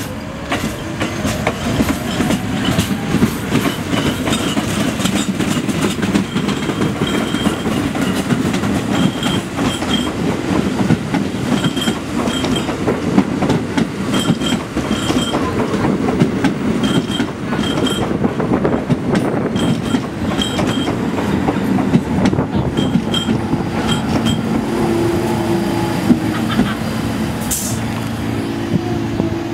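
R46 subway cars running on elevated track: a steady rumble of steel wheels on rail, with pairs of clicks every second or two as the wheels cross rail joints. A low steady hum comes in near the end.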